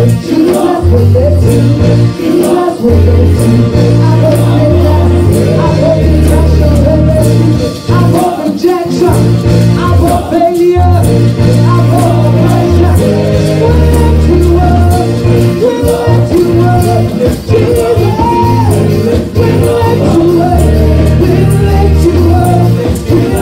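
Church praise-and-worship music: voices singing a gospel song over a band with a strong bass line and a steady percussion beat.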